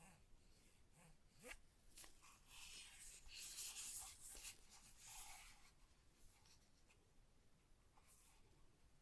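Faint scraping and rubbing of hands handling the unboxed items, strongest from about two and a half to five and a half seconds in, with a few light ticks before it.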